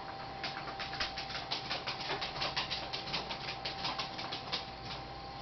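A quick run of light clicks, several a second, from the laptop being worked to shut it down, over a faint steady high-pitched hum.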